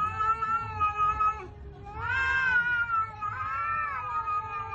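Cats facing off and yowling: three long, drawn-out, wavering calls with short breaks between them, the threatening caterwaul of a cat standoff.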